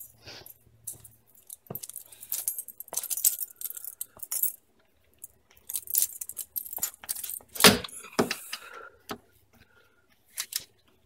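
Steel hand tools clinking and rattling on a concrete shop floor as a socket, extension and long wrench are picked up and fitted together, then set on a hub-to-knuckle bolt. Irregular clinks and short rattles, with one sharper metal clank about two-thirds of the way through.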